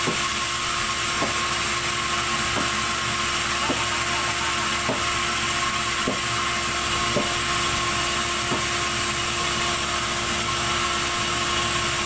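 Band sawmill running without cutting: a steady mechanical whine and hiss, with a faint tick repeating a little more than once a second.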